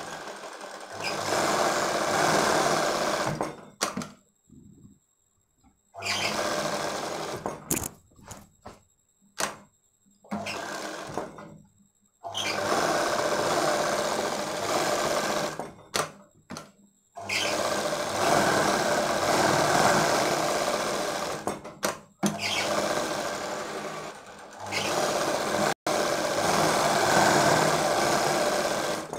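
Sewing machine stitching layers of fabric, running in about six stretches of a few seconds each with short stops between them as the cloth is repositioned.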